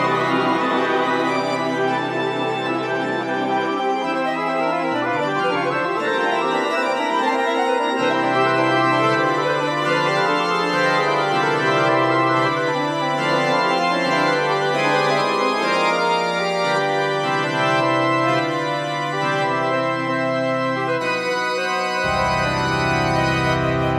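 Instrumental music of long held chords over a slowly stepping bass line; a deeper bass note comes in near the end.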